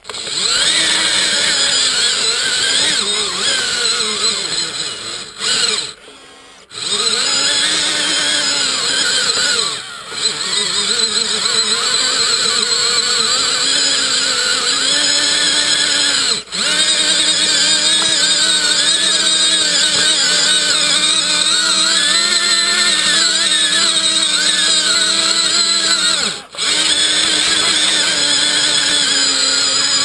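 RC scale model bulldozer's drive motors and gearing whining as it moves, the pitch wavering up and down with speed. The sound drops out briefly about four times as the machine stops and starts again.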